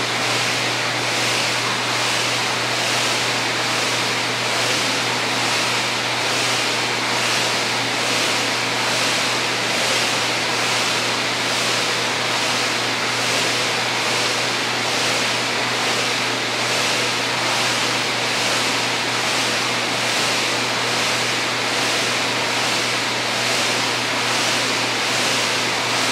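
Kayak paddling ergometer's flywheel whirring steadily, surging with each paddle stroke about once a second, over a low steady hum.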